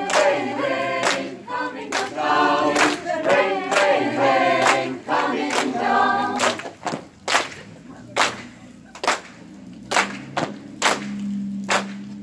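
Amateur choir singing a cappella over a steady beat of sharp hand claps. About six and a half seconds in, the singing stops and the claps go on alone, roughly one every 0.8 seconds.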